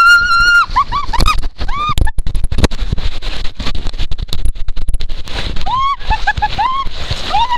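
A woman's high-pitched screams and squeals as she rides down a water slide, a run of drawn-out cries at the start and again from about six seconds in. Between them, rushing water and a rapid series of knocks and bumps against the slide.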